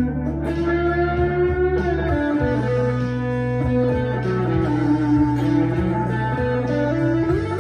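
Harley Benton CST-24T electric guitar with P90 pickups, played through a Harley Benton Plexicon pedal and a Blackstar HT-1R amp: a slow lead line of held single notes with string bends that glide up in pitch.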